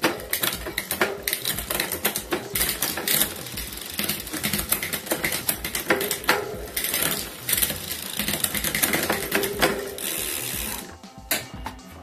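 Bicycle drivetrain turning: the chain running over the rear cassette and through the newly fitted rear derailleur with rapid clicking and rattling, as the shifting is being adjusted. The sound drops away near the end.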